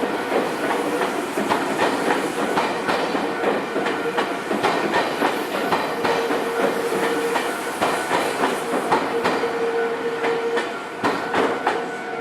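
Nankai Electric Railway train running past over the level crossing, its wheels clacking over the rail joints, with a steady hum in the middle stretch.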